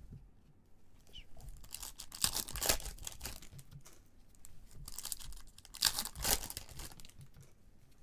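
Foil trading-card pack wrappers crinkling and tearing in two spells, one starting about a second and a half in and the other about five seconds in.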